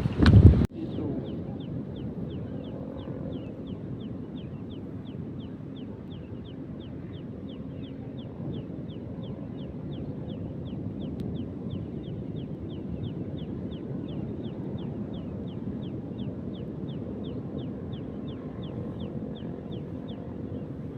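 Strong wind buffeting the microphone, cut off abruptly under a second in. Then a steady low rumble of wind and surroundings, with a long run of short, high, falling chirps repeating evenly about two to three times a second.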